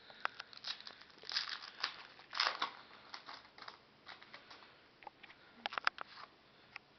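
Baseball cards being handled and flipped through, with irregular short scrapes, crinkles and sharp clicks of card stock and packaging. The loudest stretch comes a little over a second in, and a quick run of clicks follows near the end.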